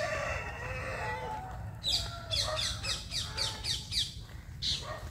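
Village birds calling: a chicken clucking, then a rapid run of short, falling high chirps from a bird, about four a second, over a low steady rumble.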